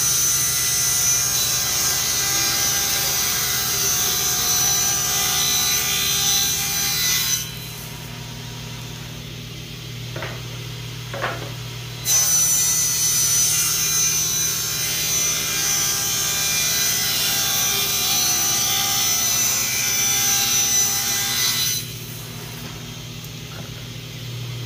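Table saw cutting a mitered edge along a board, in two long cuts, each of several seconds. Between the cuts and after them the blade spins free with a steady hum. Two sharp knocks come in the pause between the cuts.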